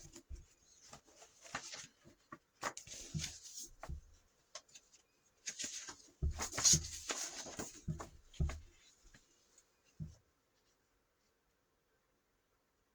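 Paper rustling with light clicks and soft knocks as paperwork is leafed through and handled, stopping about ten seconds in.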